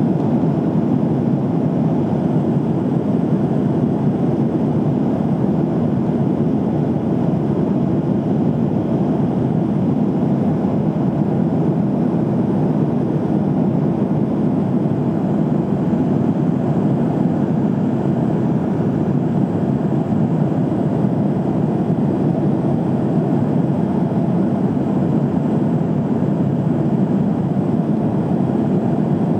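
Steady in-flight cabin noise of a Boeing 737-800 airliner: an even, deep rush of engine and airflow noise that holds without change.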